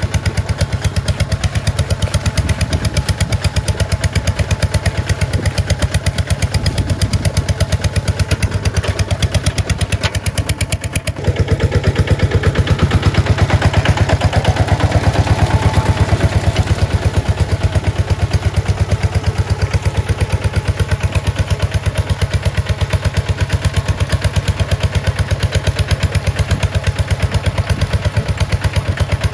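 Kubota RT140 single-cylinder diesel engine running steadily with a rapid, even thump. It dips briefly about eleven seconds in, then runs louder for several seconds.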